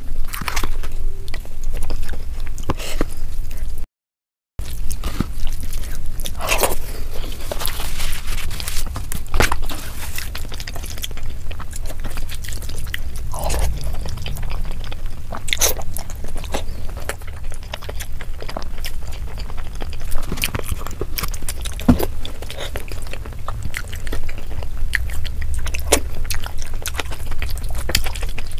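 Close-miked eating sounds: a bare hand squishing and scraping biryani rice and egg curry gravy together on a plate, with chewing and mouth clicks, sped up to double speed. The sound drops out briefly about four seconds in.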